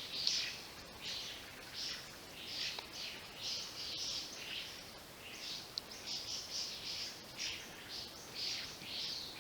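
Spot-breasted parrotbill singing: a continuous run of short, high, chattering notes, several a second.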